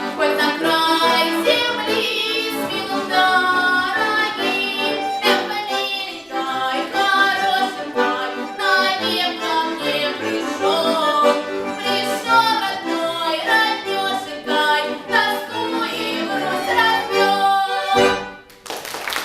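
A girl's voice singing a Russian folk-style song over accordion chords, the music ending with a final held chord about 18 seconds in. Clapping starts right after it.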